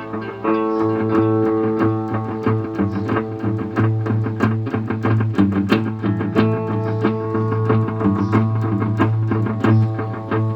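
Guitar played through a Line 6 DL4 delay pedal: a run of picked notes over a held low note, the pedal working again after repair.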